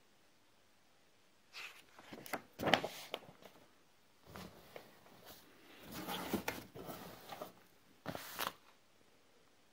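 Paper rustling and crinkling in irregular short bursts as printed manual sheets and a booklet are handled and shuffled by hand, starting after a quiet first second and a half.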